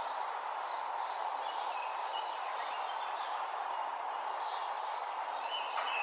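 Several birds chirping, short high calls repeated every second or so, over a steady background rush. From about five and a half seconds in, one bird starts a quick run of short repeated notes.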